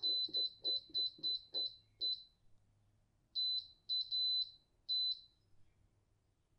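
Instant Vortex air fryer's control panel beeping as its timer dial is turned, one short high beep per click: a quick run of about three beeps a second, a pause about two seconds in, then a few more beeps.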